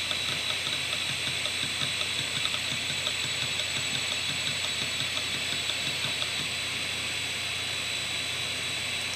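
Opened 6 GB hard drive with its cover off: the two platters spin with a steady high whine and low hum, while the read/write head arm seeks back and forth in rapid ticking as files are written to it. The ticking thins out after about three seconds.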